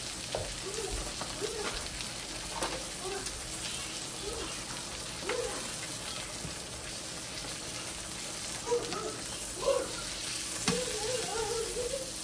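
Chicken breasts sizzling in oil in a nonstick frying pan while a large pot of pasta boils, with a spoon stirring sauce in a small pot near the beginning. Metal tongs click and knock against the pan as the pieces are lifted out, the loudest knocks from about nine to eleven seconds in.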